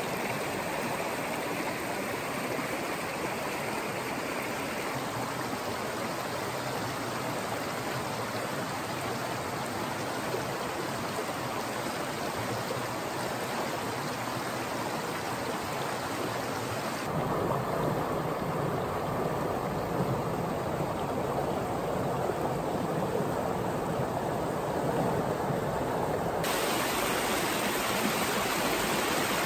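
Rushing water of a small mountain creek tumbling over rocks and riffles, running high with snowmelt: a steady, even hiss. Its character changes abruptly a few times, becoming fuller and deeper about seventeen seconds in.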